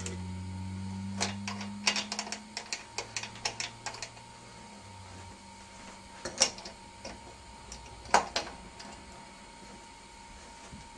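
Light metallic clicks and rattles from handling the Kalart Victor 16mm projector, then two sharper knocks about two seconds apart as its reel arm is swung up and set in place. A faint low hum stops about five seconds in.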